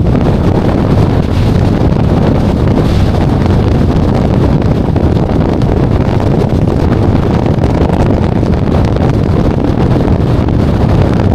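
Loud, steady wind buffeting the microphone, a dense low rumble with no let-up.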